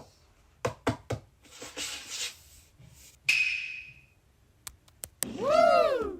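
A run of small knocks and clacks of objects being handled on a desk, a rustle, and a short ringing ding that fades. Near the end comes the loudest sound: an edited-in cartoon-style sound effect, a pitched tone that slides up and back down over about a second.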